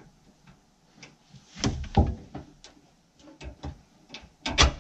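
Metal parcel tray clunking and rattling against the dashboard and its mounting brackets as it is handled into place. There is a cluster of knocks at about one and a half to two seconds in, scattered light clicks after that, and the loudest clunks near the end.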